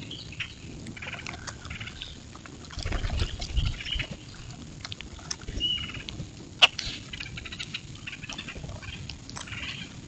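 A flock of common grackles at a feeder: many short chucks, clicks and squeaky calls overlapping, with some low thumps about three seconds in and one sharp click about two-thirds of the way through.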